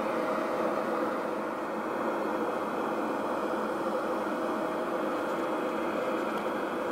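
Steady rushing noise of an Airbus A321 jet airliner, holding an even level throughout.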